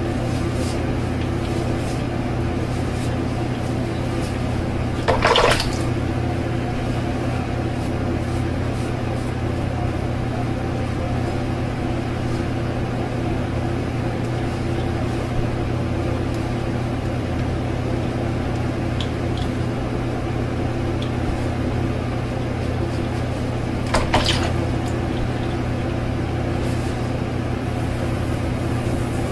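Faint scraping strokes of a cartridge razor over a lathered scalp under a steady background hum, with two brief louder noises about five seconds in and near the end.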